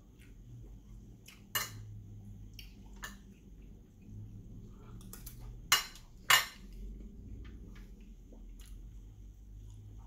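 Metal fork clinking against a plate several times, with sharp, short ringing clicks; the two loudest come close together about six seconds in.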